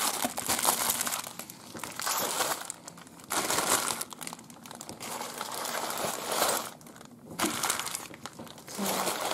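Small packaging bags of beads and charms crinkling and rustling in repeated bursts with short pauses as they are handled and packed back into the parcel.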